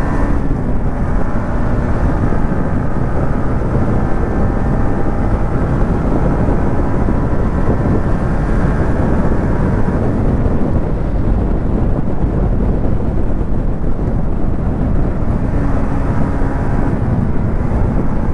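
Wind rushing over the microphone of a motorcycle cruising at steady road speed, with the Yamaha MT-15's single-cylinder engine humming beneath it. The rush stays even throughout, and the engine note comes through a little more clearly near the start and again near the end.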